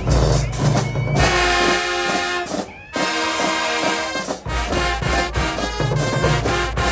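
High school marching band playing, with brass carrying the tune over heavy bass, and a brief break about three seconds in.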